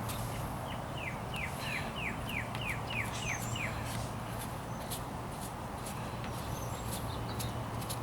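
A bird sings a quick run of about nine falling notes, about three a second, over a steady low hum, with scattered light clicks.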